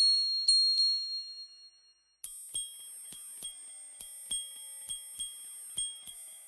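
Electronic tinnitus-relief tones. First a run of short, very high chime-like pulses, about two a second, each fading quickly, dying away about a second and a half in. After a brief silence, a loud, steady, piercingly high tone comes in, with a soft pulse beneath it about twice a second.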